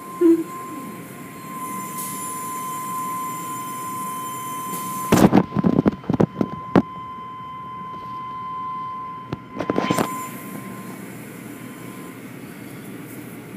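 Automatic car wash tunnel machinery running behind glass, with a steady high-pitched squeal over a low rumble. About five seconds in comes a burst of loud, muffled knocks, and a few more follow near ten seconds.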